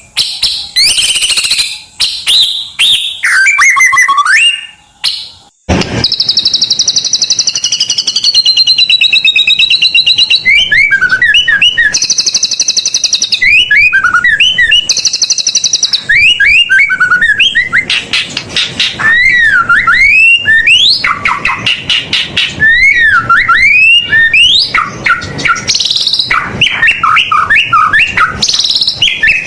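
White-rumped shama (murai batu) singing loudly and without let-up, a fast, varied song full of mimicked phrases: rapid high trills alternating with sliding whistles. There is a brief pause about five seconds in.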